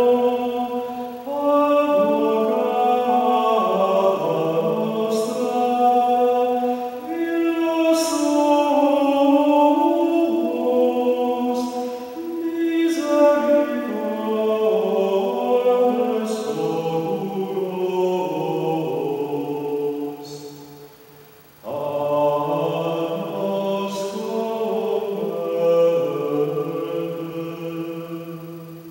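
A lone man singing Gregorian chant unaccompanied: a slow melody moving in small steps, in long phrases with short breaths between them and a longer pause about three-quarters through.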